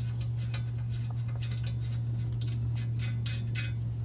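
Light, sharp clicks and ticks from hand-tool work on exhaust hardware under a car, coming faster about two and a half seconds in, over a steady low hum.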